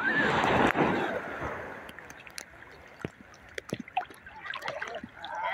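A small sea wave rushes up the sand at the water's edge, loudest over the first second, then fades as it spreads out and drains back. Sharp little taps are scattered throughout.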